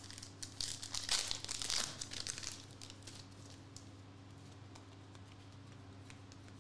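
Foil wrapper of a 2021-22 Contenders basketball card pack crinkling and tearing as it is ripped open, for the first two seconds or so. After that come only faint light ticks as the cards are handled.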